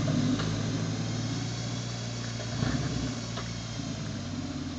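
Suzuki SJ413's 1.3-litre four-cylinder engine running steadily at low revs as the 4x4 crawls over rocks, with a brief swell about two and a half seconds in.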